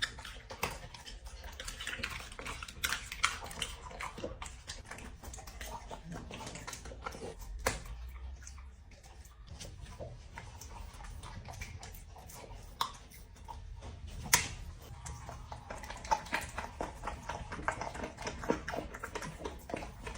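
A dog eating: irregular crunching and clicking of chewing, with an occasional sharper, louder click, the loudest about fourteen seconds in.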